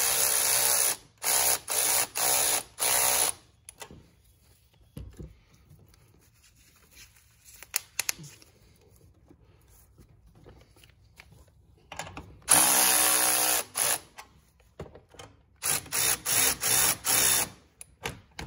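Cordless electric ratchet spinning in bursts as it runs down and snugs the T-bolt clamps on an intercooler pipe boot. There are four bursts at the start, a longer one about twelve seconds in, and a quick string of short pulses near the end, with small clicks in the quiet between.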